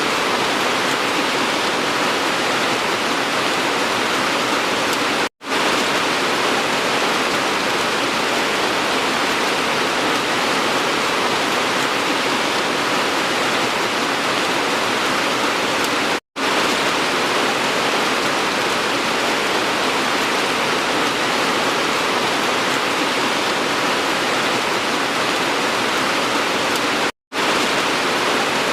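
Steady, heavy rainfall: an even, continuous hiss of rain. It cuts out completely for a split second three times, about every eleven seconds.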